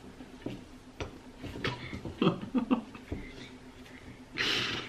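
Chopsticks clicking and scraping in ceramic bowls as noodles are mixed, with a few short voice sounds in the middle and a short breathy hiss near the end.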